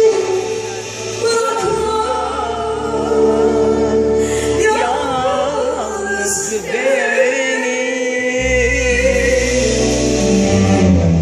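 Live concert music: a female singer sings a wavering melodic line into a microphone over a backing band, with long held bass notes underneath.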